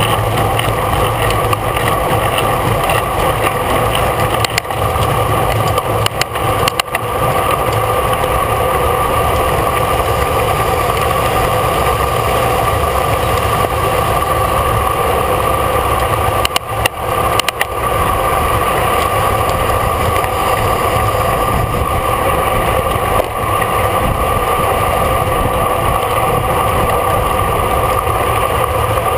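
Steady rushing wind and tyre noise from riding at race speed on a road bicycle, picked up by a camera mounted on the bike, with a steady hum under the rush. The noise dips briefly a few times.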